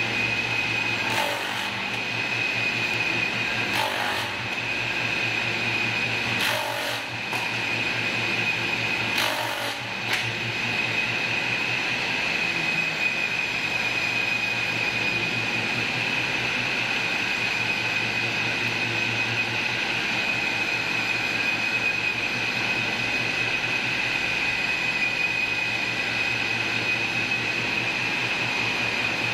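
Electric wood grooving machine running: a steady motor hum under a constant high whine from the spinning cutter. In the first ten seconds there are four brief louder bursts, a few seconds apart, as wood strips are fed through the rollers and cut.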